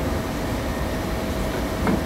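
Steady machine-shop background noise: a low rumble with a constant hum tone from running machinery. A single short knock near the end.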